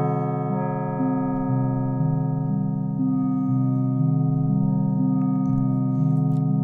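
Polyphonic FM synthesiser built in Max for Live playing a MIDI clip with a long release: a new low note starts about every half second while earlier notes ring on under their tails, overlapping into sustained chords. A few faint clicks come near the end.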